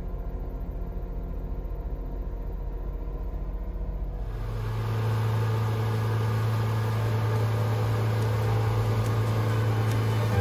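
A low, steady engine rumble, then about four seconds in a boat's engine running steadily under way, a strong hum with water rushing and splashing past the hull.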